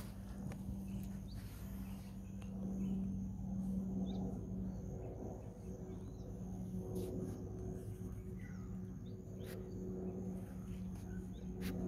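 A steady low drone holds throughout, with faint bird chirps and a few sharp clicks over it.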